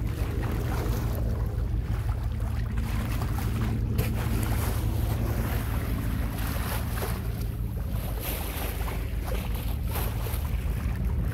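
Wind buffeting the microphone, a steady low rumble, over water washing along a moving sailboat's hull.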